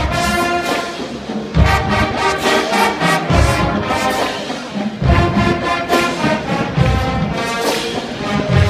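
Marching band playing live: massed brass and sousaphones holding full chords, with deep thumps every second or two.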